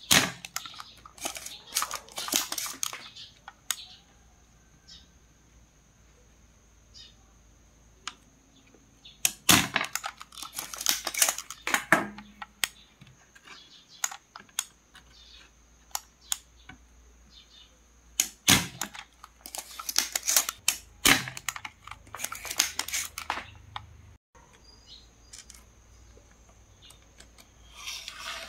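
Clicking and clattering of soldering tools and a circuit board being handled on a tabletop, in several clusters a couple of seconds long with quieter gaps between. A faint steady high whine runs underneath.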